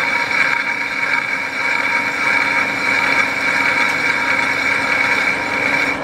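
Metal lathe running in low gear at about 270 RPM while the tool takes a light finishing cut across the face of a large cast housing: a steady mechanical whine with a high, even tone.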